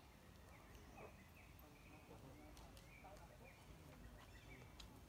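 Faint animal calls: many short, high chirps that drop in pitch, repeated throughout, over a low steady hum.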